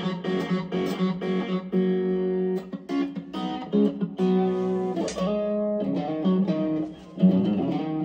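Electric guitar played through a BJpress Soul Clone overdrive pedal (a Klon Centaur clone) into a Fender Mustang amp set to its VOX AC30 model, playing a phrase of chords and single notes. The playing pauses briefly near the end, then comes back in with a loud strum.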